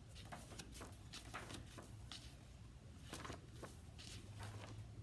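A scattering of faint rustles and small ticks of a book being opened and its pages handled, over a low steady hum.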